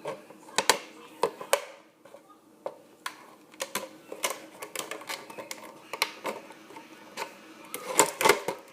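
Irregular sharp clicks and crinkles of a plastic soda bottle being worked by hand, about one or two a second, over a faint steady hum.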